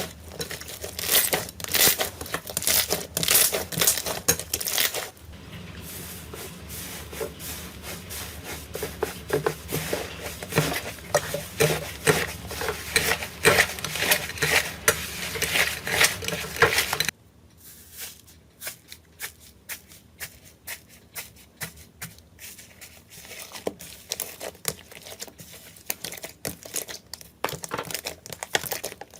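Slime being squeezed and pressed by hand: dense crackling, with sharp pops as trapped air bursts. About two-thirds of the way in the sound drops suddenly to fainter, sparser clicks and pops.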